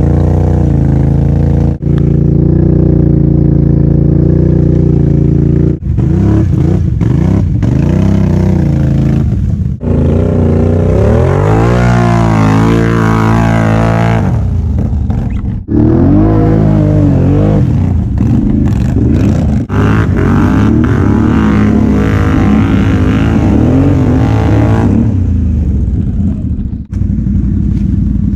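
Can-Am Outlander XMR 570 ATV's V-twin engine revving hard while churning through deep mud. It holds at high revs for several seconds, then rises and falls as the throttle is worked, with several brief sharp drops in sound.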